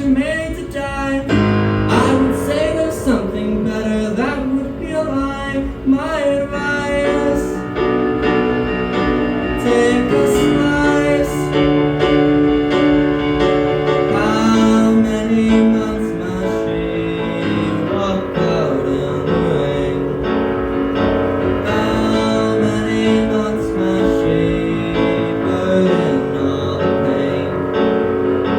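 A song sung to piano accompaniment.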